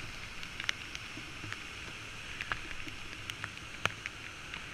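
Rushing whitewater below a waterfall, a steady hiss, with scattered sharp ticks through it.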